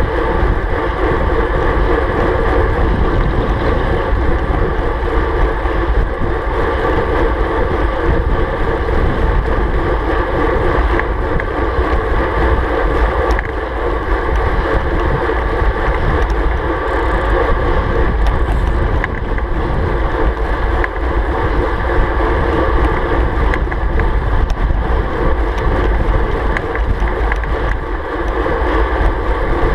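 Steady rushing wind noise on a bike-mounted action camera's microphone at about 40 km/h, heavy low rumble from the airflow buffeting the mic, with no change in pace throughout.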